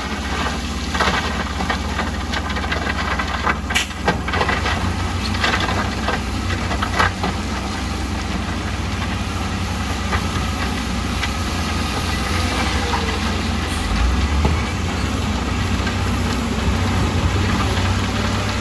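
Diesel engine of heavy construction machinery running steadily with a deep rumble, with scattered sharp knocks in the first several seconds.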